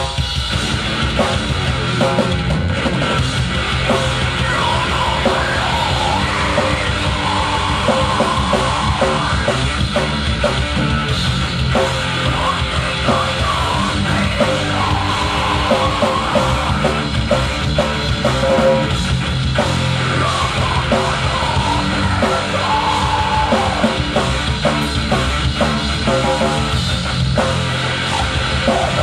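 A heavy metal band playing live, loud and without a break, with drums and a yelled vocal over the band.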